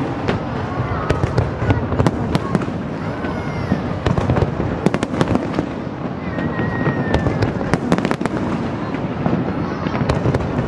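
Aerial fireworks display going off in quick, continuous succession: many sharp bangs and crackles overlapping, with crowd voices underneath.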